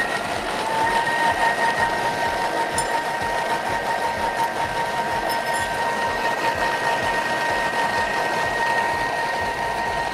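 Thermomix food processor blending, its motor whining at a steady pitch over the churn of a wet paste of sautéed onion, garlic, paprika, chickpeas and a little water being puréed into a majado.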